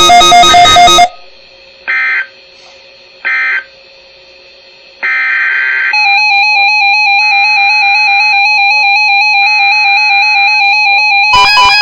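Synthesized electronic tones that sound like music: loud pulsing buzzy tones cut off about a second in, two short chirps and then a longer one follow over a faint hum, a steady buzzy tone with a pulse sets in at about six seconds, and the loud pulsing tones come back near the end.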